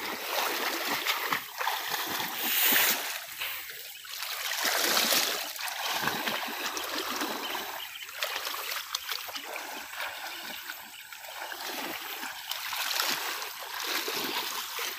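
Muddy water splashing and sloshing as people wade through a reed bed and feel for fish by hand, in uneven surges, loudest about three and five seconds in.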